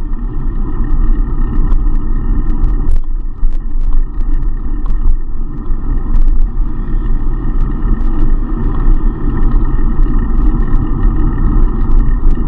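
Wind buffeting the microphone of an action camera on a moving bicycle: a loud, low, unsteady rumble that rises and falls, with scattered sharp clicks and rattles from the bike and mount.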